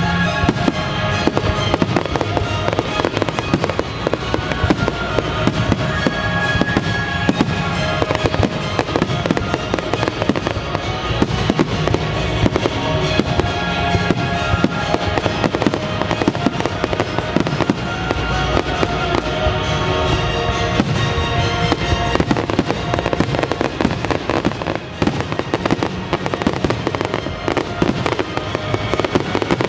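Aerial fireworks bursting and crackling in a dense, continuous barrage, with music playing alongside.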